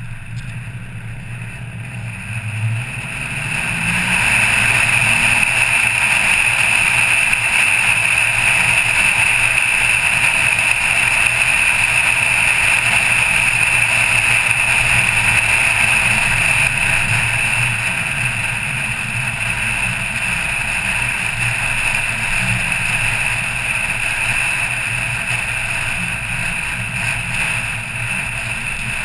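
A car driving on an open road, heard from its bonnet: steady wind and road rush over a low engine hum. It grows louder about four seconds in as the car picks up speed, then holds steady.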